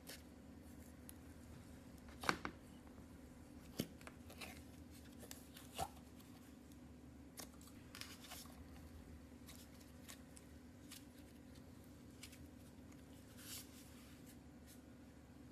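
Slime being handled by hand, giving scattered soft sticky clicks and crackles over a low steady hum, the sharpest few about two to six seconds in.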